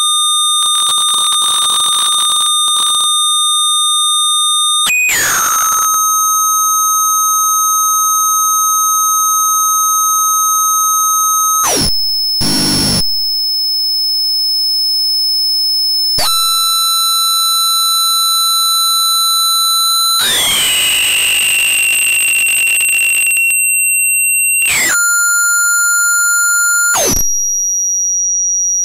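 Electronic output of an NE555 timer wired as an astable multivibrator with one pin miswired, heard directly as audio. Steady buzzy tones jump abruptly to new pitches every few seconds. Between them come stretches of harsh, chaotic noise. Here and there a tone forks into two that slide apart before the signal settles: the circuit's chaotic, bifurcating behaviour.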